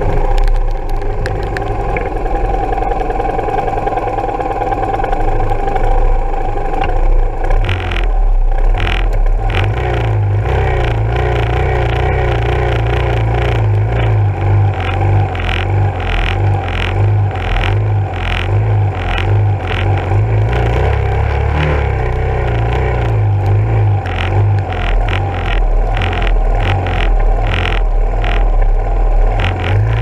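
Yamaha SR400 single-cylinder four-stroke engine heard from an on-bike camera, slowing at first and then idling steadily from about ten seconds in, stopped at a red light. Irregular clicks and knocks over it, typical of rain and wind striking the camera housing.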